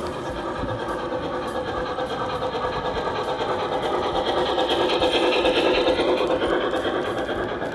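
Electric model train running on brass track, its motor and gearing whirring steadily. It grows louder as the locomotive and wagons pass, loudest a little past halfway, then eases off.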